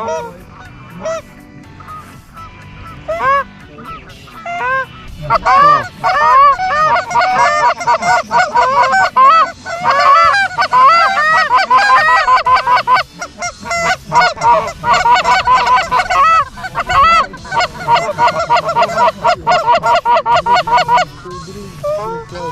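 Geese honking: a few scattered calls at first, then from about five seconds in a dense chorus of many overlapping honks, which thins out again near the end.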